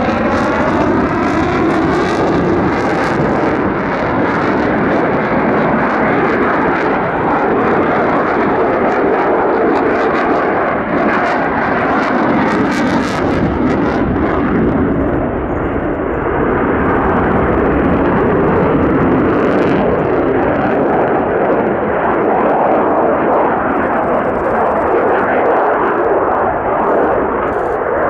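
Mitsubishi F-2 fighter's single General Electric F110 afterburning turbofan, loud and continuous as the jet manoeuvres overhead in afterburner. There is a sweeping, phasing tone at the start, and crackling for the first half that gives way to a duller steady rumble.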